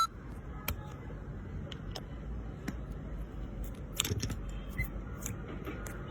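Sparse soft clicks and small crackles over a low steady rumble, with a cluster of clicks about four seconds in: slime being handled.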